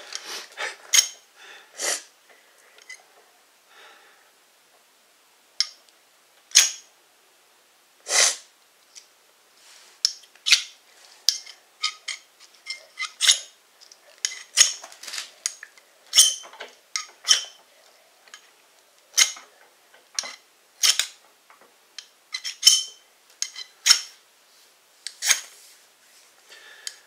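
Ferro rod struck again and again with the spine of a knife, short sharp scrapes at an uneven pace, with a pause of a few seconds near the start. The sparks are being thrown onto fatwood shavings that do not catch.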